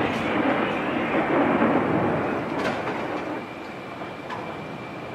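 Rolling rumble of a howitzer blast reverberating through the mountains, slowly fading away.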